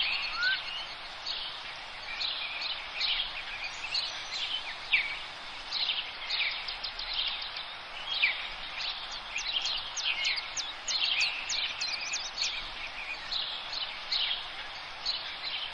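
Woodland birdsong from several birds: many quick, high chirps and trills overlapping, busiest around the middle.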